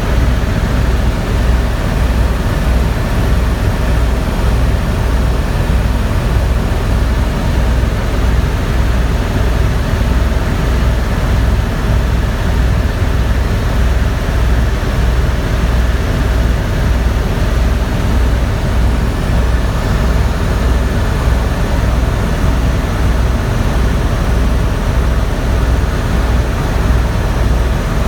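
Helicopter running in flight: a steady, loud engine and rotor noise with a regular low beat from the rotor blades.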